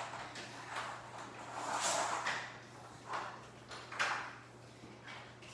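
Power cord being wound around the cord hooks of an upright vacuum cleaner, the cable rubbing and scraping against the plastic body in a few swishes, the sharpest about four seconds in.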